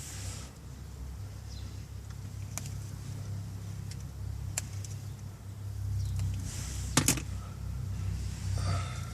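A few sharp clicks and small handling noises as a wire is stripped with hand tools under a car dashboard, a double click about two-thirds of the way through, over a steady low hum.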